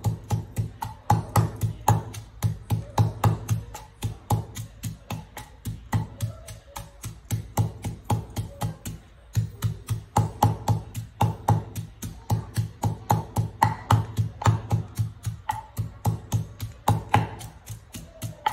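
Wooden pestle pounding a moist spice paste of garlic and chilies in a wooden mortar: dull wooden thuds at a steady beat of about three a second, with a few short breaks.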